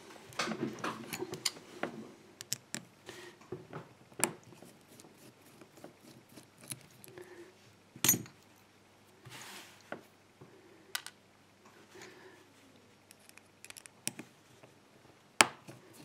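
Light metallic clicks, taps and scrapes as a small brass padlock cylinder and a flathead screwdriver are handled, with a few sharper clicks spread through, the clearest about four, eight and fifteen seconds in.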